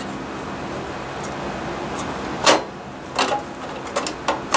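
Phillips screwdriver and metal parts being handled while a double-pole thermostat is screwed into a baseboard heater's steel junction box. A few sharp metallic clicks and scrapes are heard: the loudest about two and a half seconds in, another just after three seconds, and a quick cluster near the end, over a steady background hiss.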